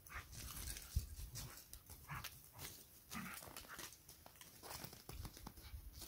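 Faint sounds of a dog moving about on snow: irregular short scuffing noises, with one sharp thump about a second in.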